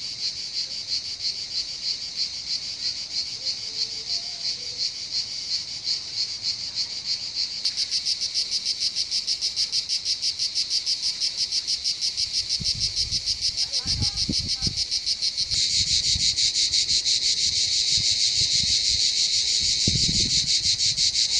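A chorus of cicadas in pine trees singing, a continuous fast-pulsing high buzz that grows louder in two steps, about 7 seconds and 15 seconds in.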